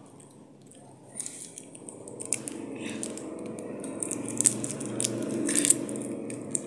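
A small child chewing food close to the microphone, with crackly, crunching clicks that start about a second in and get louder and busier toward the end.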